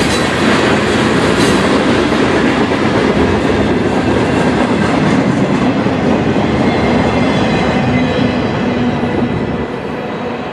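Slow freight train's last cars rolling past: the steady noise of hopper and flatcar wheels running over the rails, dropping off about nine and a half seconds in as the end of the train moves away.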